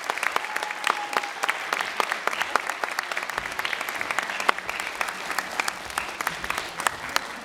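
An audience applauding, a dense patter of hand claps that thins out near the end.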